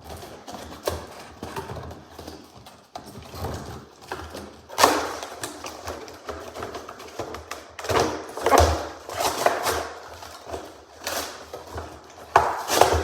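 A cardboard box and its packaging being handled: irregular rustling and scraping with light knocks, louder bursts about five seconds in, around eight to ten seconds, and near the end.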